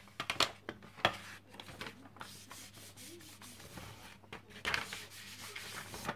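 Paper rustling and being rubbed by hand as a sheet is laid on a homemade gelatin printing plate and peeled off again, to lift the leftover paint from the plate. The rustles come in short bursts: about half a second in, around one second, and again near five seconds.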